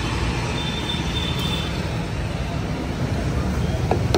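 Steady road-traffic noise with a low rumble.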